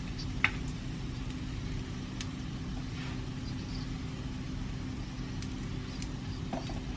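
Steady low hum of a kitchen range-hood fan running over the stove, with one sharp click about half a second in and a few faint clicks after it.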